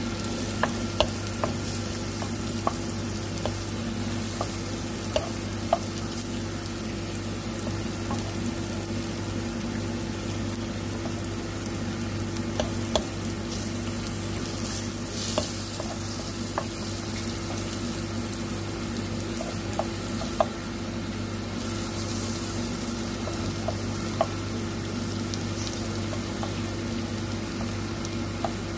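Sliced mushrooms sizzling in oil in a nonstick pan, stirred with a wooden spatula that now and then knocks against the pan with a sharp click. A steady low hum runs underneath.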